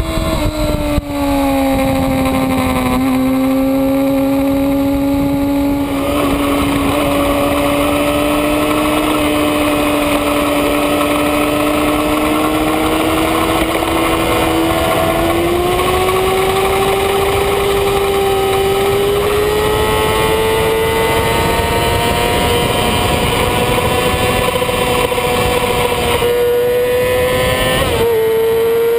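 2007 Yamaha R6's inline-four engine at speed on track, heard from an onboard camera: the revs drop over the first few seconds as the bike slows, then climb slowly through a long corner and onto the straight, with a brief dip near the end. A steady wind rush runs underneath.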